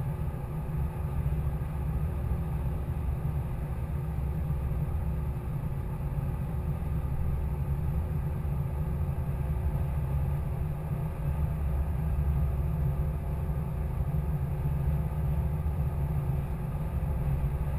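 Steady low rumble with a faint steady hum above it, unchanging throughout, with no distinct clicks or knocks.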